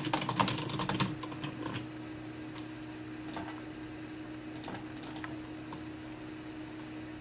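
Typing on a computer keyboard, a quick run of keystrokes for the first two seconds, then a few separate clicks around the middle, over a steady low hum.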